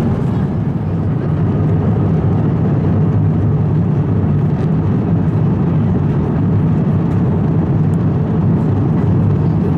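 Steady, even roar inside the cabin of an Airbus A350-900 airliner: engine and airflow noise, deep and unchanging.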